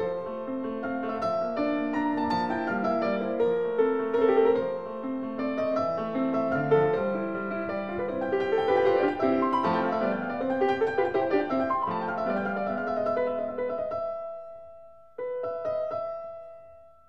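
Background piano music: a gentle melody of overlapping held notes. It fades out about fourteen seconds in, and a new phrase starts a second later and fades again.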